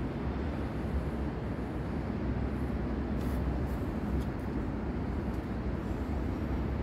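Steady low rumble of background noise with a faint low hum, even throughout, with no distinct events.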